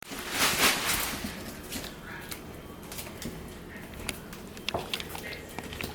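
Great Pyrenees chewing a raw chicken drumstick: scattered sharp cracks of bone and gristle, after a loud rustle about half a second in.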